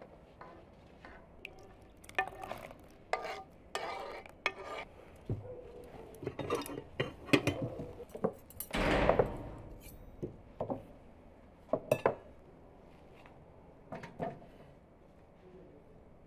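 Ceramic plates and metal forks clinking and knocking as they are set down on a table, in a string of separate clinks, with a longer scraping sound about nine seconds in.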